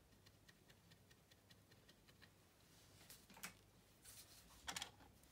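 Near silence: quiet room tone with faint scattered ticks, and a couple of brief, slightly louder scratchy clicks about three and a half and nearly five seconds in.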